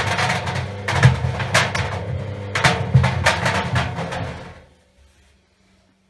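Tennis balls knocking and bouncing around inside a turning dry stainless steel washing machine drum, irregular thuds over the steady hum of the drum motor. About three-quarters of the way through, the drum stops and the knocking and hum die away to near silence.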